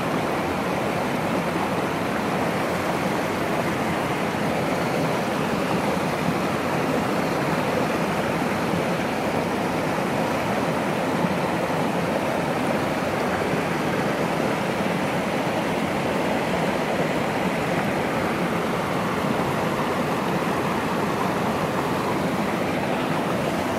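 Stream water rushing over rocks, a steady, even rush with no breaks.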